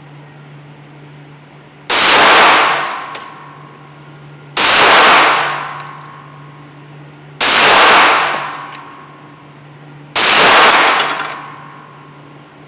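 Four pistol shots fired slowly, about two and a half seconds apart, each ringing out in a long reverberant tail, with a fifth shot starting right at the end. A steady low ventilation hum runs underneath.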